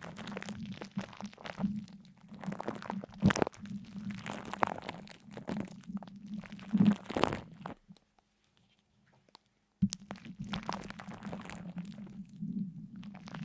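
Close, irregular crunching and crackling with a low steady undertone. It stops for about two seconds past the middle, then starts again suddenly.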